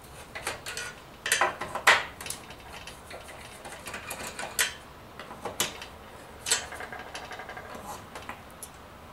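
Irregular sharp clicks and short scrapes of a hand tool working at the small plugs in the finned aluminium housing of a Ubiquiti AirFiber 24 radio, loudest about two seconds in.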